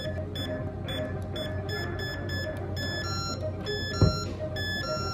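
Electronic keypad locker lock beeping as its keys are pressed: a run of short high beeps, then a pattern alternating high and lower beeps as the lock fails to open. A thump about four seconds in.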